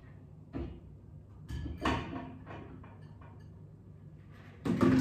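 A run of knocks and clunks from handling things in a kitchen, like a door or cupboard being worked: a few light knocks early on, then the loudest clunk near the end.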